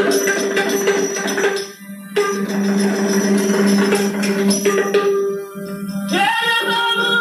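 Yakshagana music: a steady drone under regular drum strokes and jingling hand cymbals, with a short break near two seconds. A male voice comes in singing about six seconds in.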